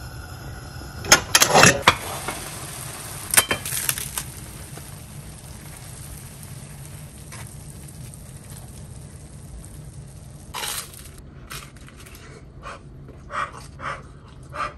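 Sourdough toast frying in a nonstick pan with a steady faint sizzle, broken by a few sharp clanks of pan and utensils in the first four seconds and again about ten seconds in. Near the end, a run of short soft taps.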